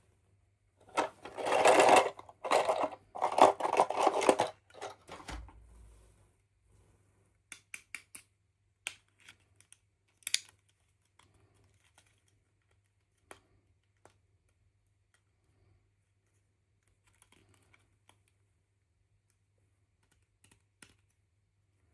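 Hands handling plastic toy packaging and small doll pieces: a few seconds of rustling and crinkling, then scattered light clicks and taps.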